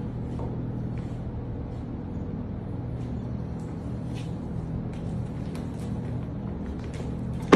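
A steady low hum, with faint scattered clicks over it, and one loud sharp knock right at the end.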